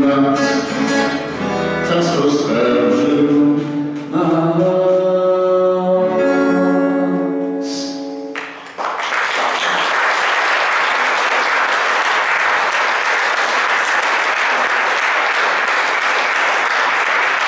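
Man singing to his own acoustic guitar, ending the song on long held notes. About nine seconds in the music stops and the audience breaks into steady applause.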